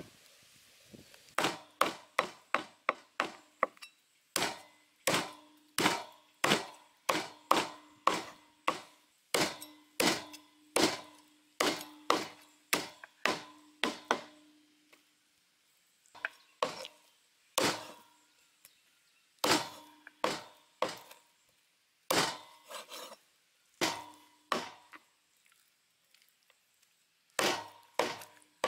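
Meat cleaver chopping a raw Muscovy duck through bone onto a wooden chopping block: sharp, loud chops with a short ring after each, about two a second for the first half, then in spaced runs with pauses.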